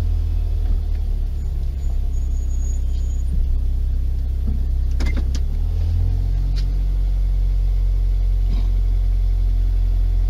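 A car's engine running at low speed, a steady low rumble heard from inside the cabin, with a few faint clicks about five seconds in and again near the end.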